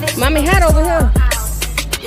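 Hip hop music with rapped vocals over a heavy bass line and a steady drum beat.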